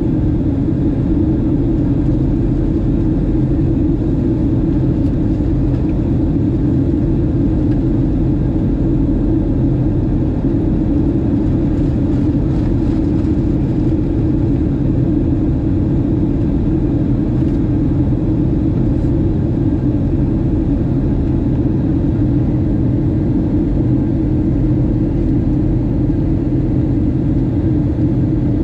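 Steady in-flight cabin noise of a Boeing 737-700, heard inside the cabin at a window seat: the even rumble of its CFM56-7B jet engines and the rush of air along the fuselage, with a strong low hum and no change in level.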